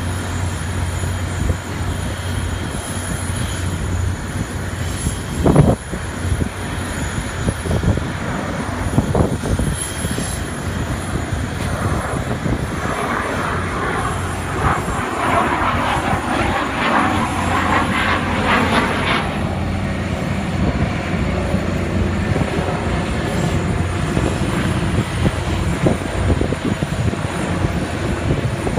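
Fighter jet engine noise from a flying display, running steadily and swelling louder for several seconds in the middle as the jet passes.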